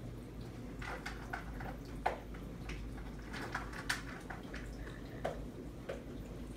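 Reef aquarium's circulating water dripping and trickling in short irregular drops over a steady low hum.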